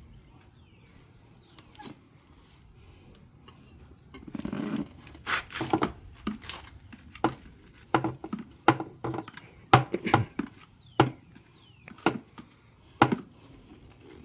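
A bicycle tire being worked back onto its rim by hand with tools. Faint handling and a brief scrape come first, then from about five seconds in an irregular series of sharp clicks and knocks, about a dozen, as tools strike the wheel.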